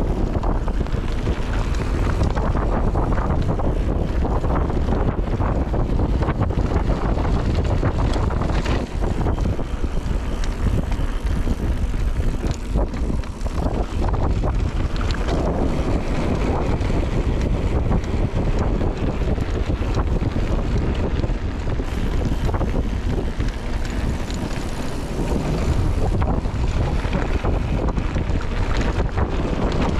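Wind rushing over a bike-mounted action camera's microphone as a full-suspension mountain bike rolls down a dirt trail, with a steady crunch of tyres and a constant fine rattle of the bike over the bumps.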